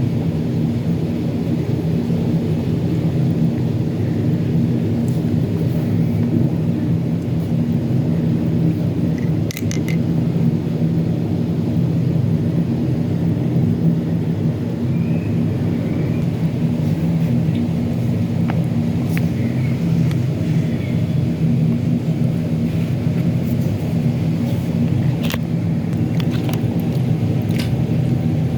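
A steady low rumbling drone, even and unbroken, with a few faint scattered ticks over it.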